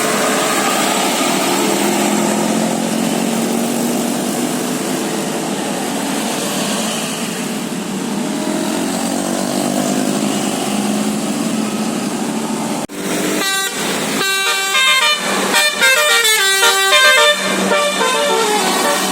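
Steady noisy street sound for about 13 seconds that cuts off abruptly, then a bus's multi-tone musical air horn (telolet Basuri) playing a quick tune of stepped notes up and down for the last six seconds or so.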